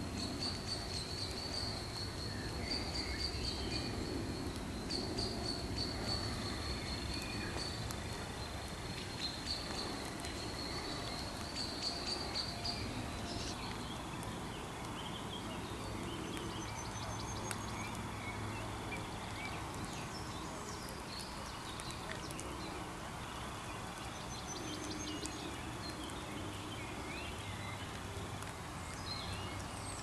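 Evening outdoor ambience. A steady, high-pitched, insect-like trill runs for the first dozen seconds and then stops, short bird chirps and calls come at scattered moments, and a low steady rumble lies underneath.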